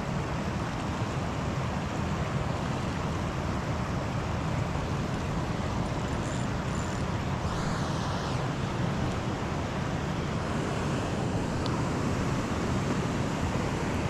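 Steady rushing of water pouring over a dam spillway waterfall, an even wash of noise that does not let up.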